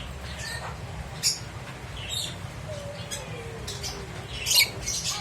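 Pet lovebird giving short, sharp, high-pitched chirps every second or so, the loudest near the end, over a steady low hum.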